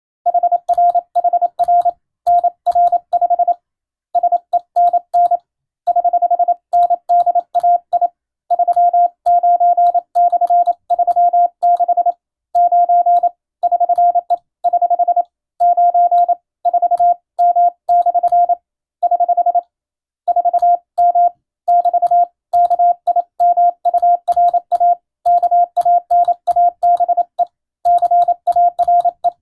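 Morse code (CW) as a single steady mid-pitched beep keyed on and off in dots and dashes, grouped into letters and words with short pauses between. It sends a radiotelegram in Latin-alphabet Morse at exam speed for receiving practice.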